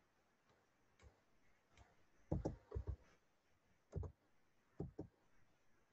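Faint, scattered clicks of a computer mouse and keyboard during slide editing, with a quick cluster of clicks about two and a half seconds in and a few single clicks after.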